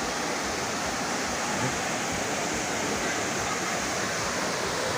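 Waterfall water falling and splashing in a steady, even rush.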